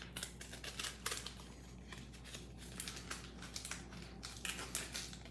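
Faint crinkling, rustling and small clicks of packaging being handled and opened, plastic and card, over a steady low hum.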